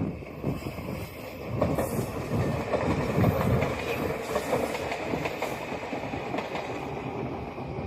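JR Kyushu YC1 series diesel railcar running past, its wheels clacking over the rail joints. The sound swells in the middle seconds, then settles into a steadier rumble.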